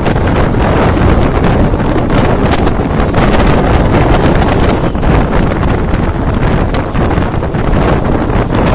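Loud wind buffeting a microphone held out of a moving passenger train, over the train's running noise on the track.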